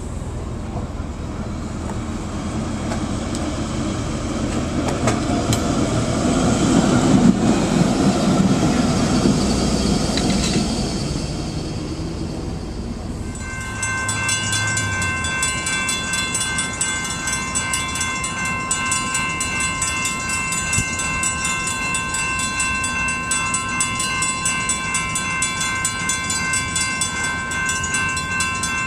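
Vintage PCC streetcar rolling past close by: the rumble of steel wheels on rail builds, is loudest about a third of the way in, then eases. About halfway through it gives way to a steady high hum of several held tones over a softer background.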